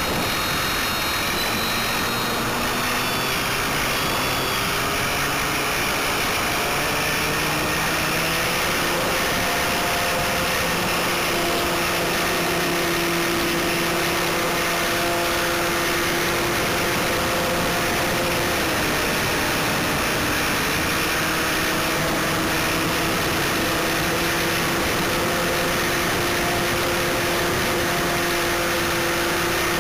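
GWS Stearman foam RC biplane in flight, heard from a camera on the model itself. Its electric motor and propeller make a steady hum over constant wind rush. The pitch creeps up over the first several seconds and dips briefly about two-thirds of the way through as the throttle changes.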